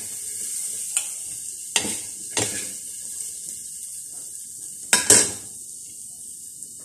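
Metal spatula scraping and knocking against a steel wok and plate as fried food is scooped out, over a steady frying sizzle. There are a handful of sharp scrapes, and the loudest two come close together near the end.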